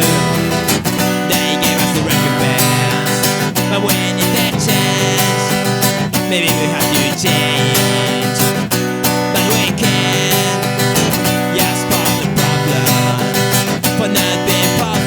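Acoustic guitar strummed in a fast, steady rhythm: an instrumental passage of an acoustic punk song.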